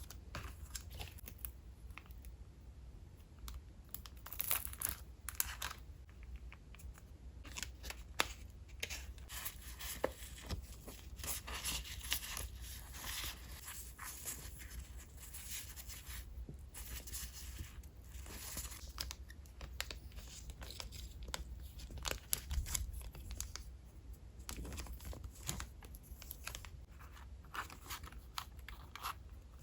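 Paper craft materials and their packaging being handled by hand: a string of irregular rips, rustles and crinkles, busiest in the middle of the stretch.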